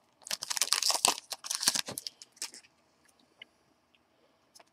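Foil trading-card pack wrapper crinkling and tearing as it is opened, for about two and a half seconds, then a few faint ticks as the cards are handled.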